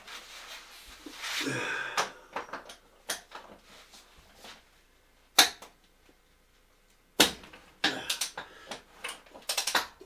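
Sharp metal clicks and knocks of a wrench working the lower heating element of an electric water heater as it is unscrewed. The strikes are scattered: a loud one about five seconds in and a quick run of them near the end.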